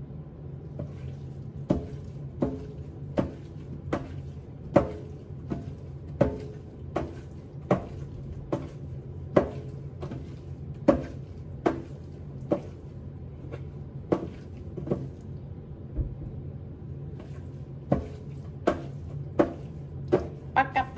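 A small spice bottle being shaken and tapped over raw steak to sprinkle seasoning: sharp, regular taps about one and a half a second, pausing briefly before a quicker flurry near the end. A steady low hum runs underneath.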